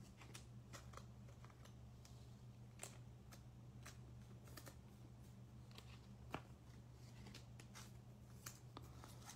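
Faint scattered clicks and taps of trading cards being handled and set down on a tabletop, over a steady low hum.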